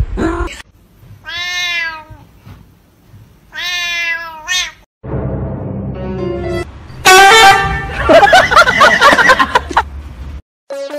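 A domestic cat meowing twice, two drawn-out meows that rise and fall in pitch, about two seconds apart. About halfway through, loud music takes over.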